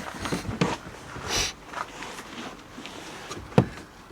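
Hand and tool handling noises at a tailgate gas strut's end fitting while it is being worked loose. There are scattered light clicks and knocks, a short scrape about a second and a half in, and a sharp knock near the end.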